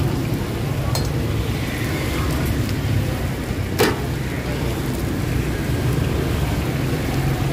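Steady street traffic hum, with a sharp clink about four seconds in and a lighter one about a second in.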